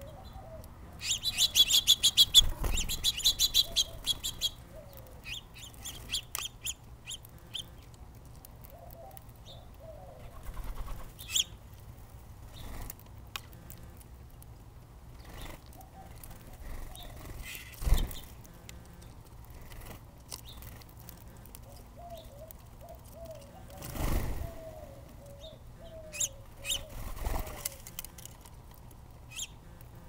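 Small songbirds at a seed feeder: a quick run of loud, rapid chirps lasting about three seconds near the start, then scattered single chirps. A few sudden flutters of wings as birds land and leave, and faint dove cooing in the background.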